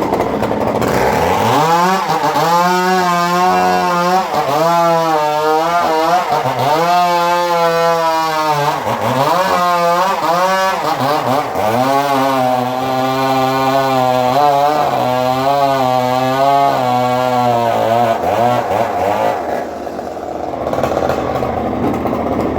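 Sawmill saw cutting through a trembesi (rain tree) log. Its motor's pitch sags and recovers again and again under the load of the cut, from about a second and a half in until near the end, when it settles to a lower steady hum.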